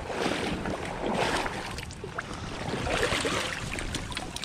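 A hooked trout splashing and thrashing in shallow stream water as it is drawn into a landing net.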